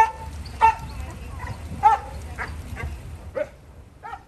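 Dog giving short, high-pitched barks and yips, about six in four seconds, the loudest at the start and again about two seconds in.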